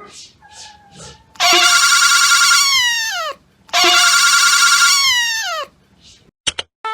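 A cat meowing twice: two identical long, loud meows, each held for about a second and then sliding down in pitch. Faint soft sounds come before them.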